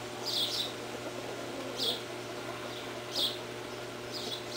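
Small birds chirping: short high chirps about once every second or so, with a few quicker ones near the end.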